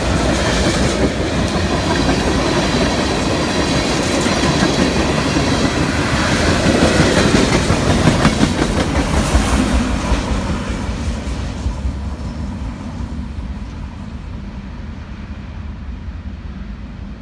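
Freight train cars rolling past at close range, with wheels clicking over rail joints. The sound fades away steadily from about ten seconds in as the last car, a boxcar, goes by and draws off.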